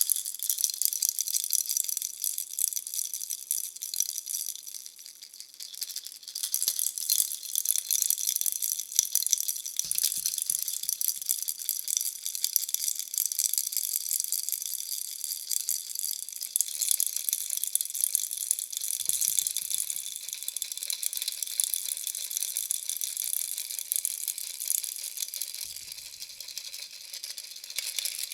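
Bunny-shaped baby rattle toy shaken continuously, a dense, bright rattling that eases off briefly about four to six seconds in.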